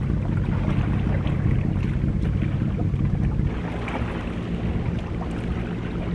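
Wind rumbling on the microphone, easing slightly a little past halfway, with sea water washing against rocks.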